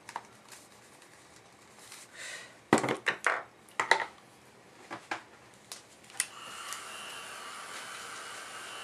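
A few knocks and clicks as things are handled on a table. Then, about six seconds in, a hair dryer clicks on and runs with a steady whir, blowing on the canvas to dry the glue.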